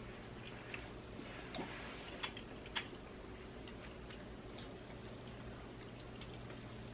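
Faint eating sounds: scattered soft clicks of chewing and mouth noises, a few a little louder about two seconds in, over a low steady hum.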